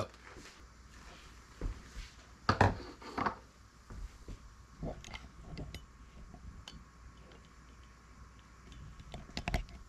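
A few scattered light knocks and clicks of kitchen handling, a cluster of them about two and a half to three seconds in and another near the end, over faint room noise.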